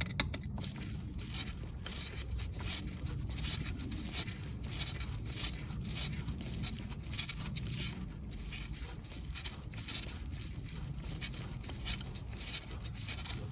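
Rapid, even run of light metallic scraping clicks as a part of a 1966 Lincoln Continental's steering box is spun round by hand during reassembly.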